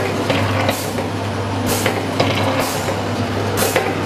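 Jelly and liquid packaging machine running: a steady low hum under mechanical clatter, with a hiss that repeats about once a second as it cycles.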